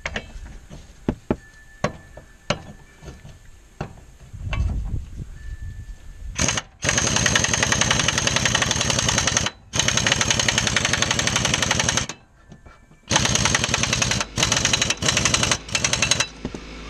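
Pneumatic impact wrench hammering a lawn tractor's mower-blade nut tight, in several long runs and then a few short bursts, after some sharp clicks and knocks as the blade and nut are fitted.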